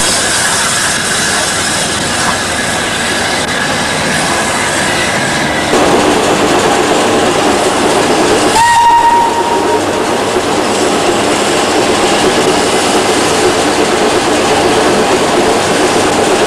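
A heritage railway train running, with a steady rumble that grows louder about six seconds in. About eight and a half seconds in, a single short whistle blast of about a second sounds over it.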